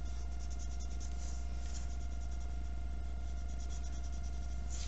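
Wax crayon scribbling on paper in quick back-and-forth strokes, colouring in a large area, over a steady low electrical hum.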